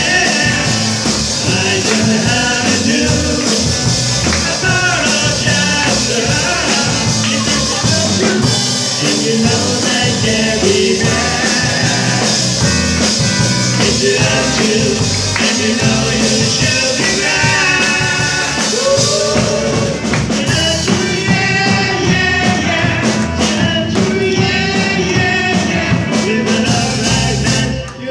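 Live rock and roll band playing with a lead vocal: electric guitars, drum kit and keyboard in a loud, steady groove.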